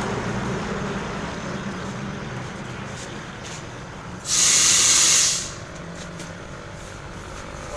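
A single burst of compressed air hissing from an air hose for about a second, starting and cutting off sharply, over a low background hum.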